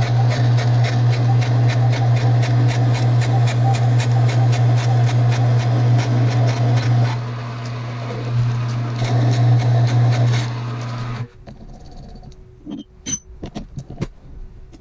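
A metalworking machine's motor running with a steady hum and a regular ticking about four or five times a second, then switching off about 11 seconds in. A few light metal clinks follow.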